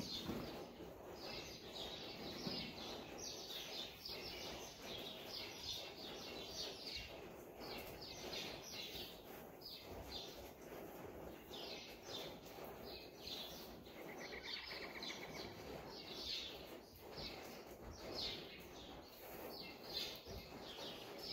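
Small birds chirping over and over in quick high notes, with a short buzzy trill about fourteen seconds in.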